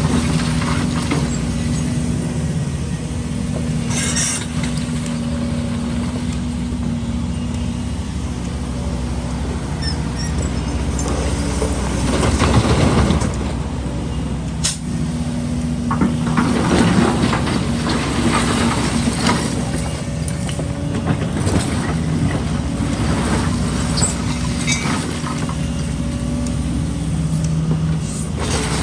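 Heavy diesel construction machinery running steadily, with the engine note surging louder under load about twelve seconds in and again a few seconds later, and a few short sharp knocks in between.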